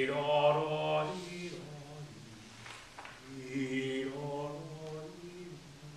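A man's voice singing wordlessly in two long, held phrases, the first stepping up in pitch about a second in, with a short break before the second.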